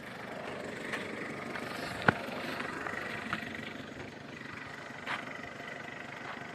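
Strong wind buffeting the microphone in a steady rushing noise, with one sharp knock about two seconds in and a few fainter clicks.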